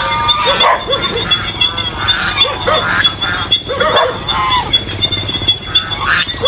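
Geese honking in many short, overlapping calls over a steady high buzz of insects.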